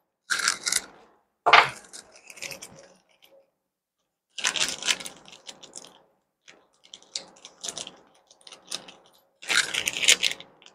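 Small loose metal hardware (bolts, nuts and washers) clinking and rattling as it is handled, in several short bursts.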